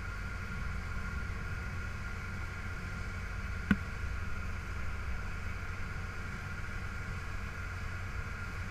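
Boat engine running steadily under way: a low rumble with a steady whine over it. A single sharp click comes a little under four seconds in.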